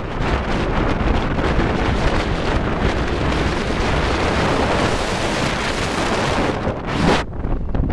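Wind buffeting the microphone of a camera riding in a moving car, over road and engine rumble. About seven seconds in the hiss cuts off abruptly, leaving a lower rumble.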